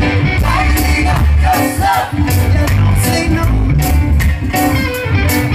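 Live reggae band playing loud through a PA: heavy bass, drums with regular cymbal strokes, electric guitar, and a lead voice singing.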